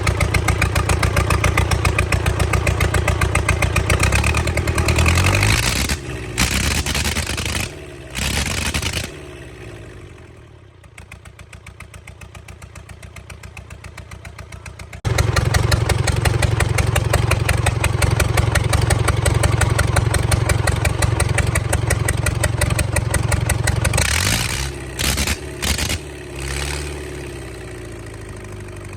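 Rebuilt four-cylinder engine of an aircraft pushback tractor running with an even, fast pulsing beat. About six seconds in it falters and drops low. It picks up loudly again at about fifteen seconds, then stutters with short gaps near the end and settles quieter.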